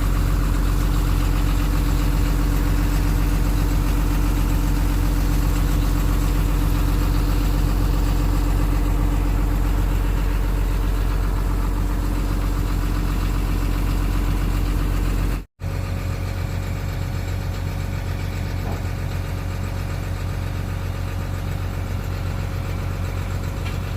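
Excavator diesel engine running steadily at idle. About two-thirds of the way through the sound cuts out briefly and resumes as a slightly quieter, steady engine hum.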